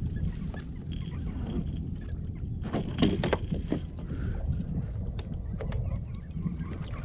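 Steady low rumble of wind and water around a fishing kayak, with a quick cluster of sharp clicks and knocks about three seconds in and a few lighter ticks scattered through.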